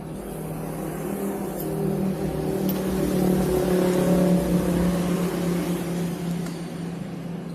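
A motor's steady hum that grows louder to a peak about halfway through, then fades away.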